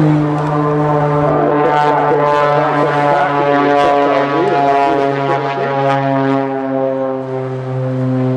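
Jet Pitts aerobatic biplane flying past under power: a loud, steady engine drone with a low tone and many overtones, its pitch sliding slowly lower through the pass.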